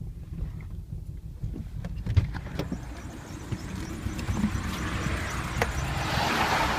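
BMW E36 engine idling roughly, a steady low rumble with scattered sharp knocks and clicks. A hissing noise swells near the end.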